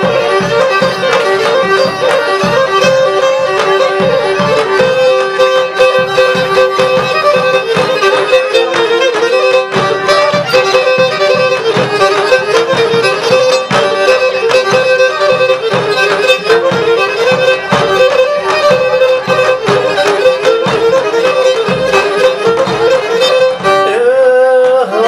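Instrumental passage of Pontic Greek dance music, its melody played on a bowed Pontic lyra (kemençe) over a steady beat, between sung verses of the song.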